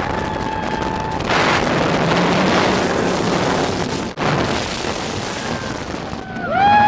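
Rushing wind buffeting the microphone in the front seat of a steel roller coaster running at speed. Near the end a rider's high, wavering yell begins.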